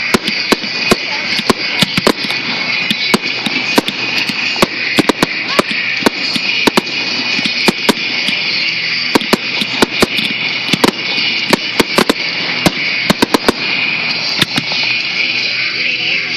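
Aerial firework shells bursting in quick succession in a finale barrage. A rapid, irregular string of sharp bangs comes several a second over a steady high hiss.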